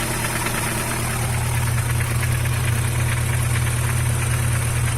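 Chevrolet Vectra engine idling steadily on a cold start, heard close up. It carries the annoying little noise ("barulhinho chato") that the owner says it makes only when cold.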